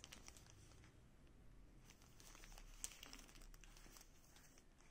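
Faint crinkling of a plastic courier mailer bag being handled and turned over in the hands, with one sharp click about three seconds in.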